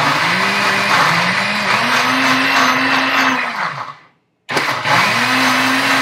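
Countertop blender motor blending a thick soy pâté: it runs for about three and a half seconds, picking up speed partway through, spins down and stops, then starts again half a second later and keeps running.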